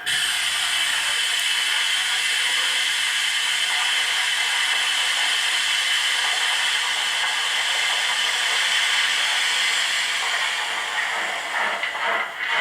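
Digital sound decoder of an HO model steam locomotive playing a long steady steam hiss, like open cylinder drain cocks, that starts abruptly. Near the end the hiss fades and the first rhythmic exhaust chuffs begin as the locomotive starts off.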